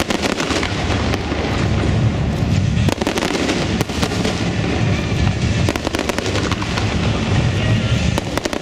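Fireworks display: many aerial shells bursting in quick succession, their bangs and crackle overlapping into a continuous loud rumble with sharp cracks throughout.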